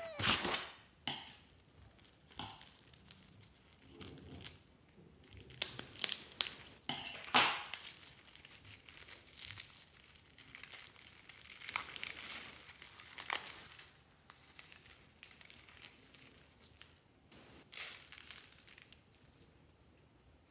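Scissors snipping a rubber balloon, then irregular crinkling, crackling and clicking as the cut balloons are peeled open and foam beads and slime are squeezed out of them. The loudest snaps come just after the start and again about six to seven seconds in.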